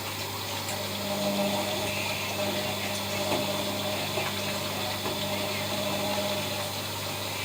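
ELIN WA 14 M washing machine running: a steady motor hum comes in about a second in and stops near the end, over a constant low hum.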